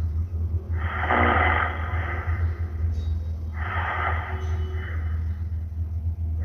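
A person snoring: two rasping breaths of about a second each, one about a second in and one about three and a half seconds in, with the next beginning at the very end, over a steady low hum.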